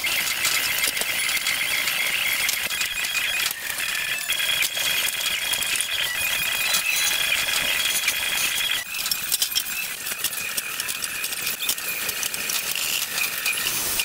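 Continuous metallic rattling and clatter of a 2 mm aluminium sheet being clamped and folded to 90 degrees on a Magnabend sheet-metal folder.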